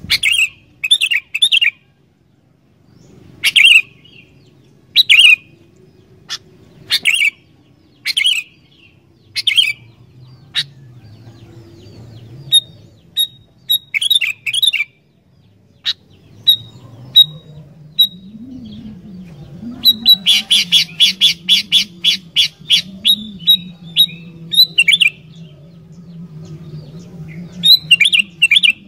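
Sooty-headed bulbul (kutilang) singing vigorously: short bright chirping phrases repeated every second or two, with a fast run of rapid repeated notes about two-thirds of the way through. A faint low hum lies underneath.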